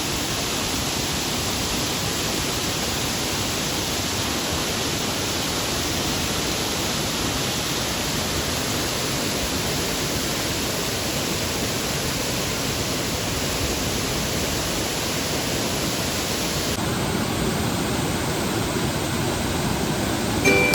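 Steady rushing noise of a waterfall, with no pauses. About three-quarters of the way through, its tone changes abruptly, thinner in the highs.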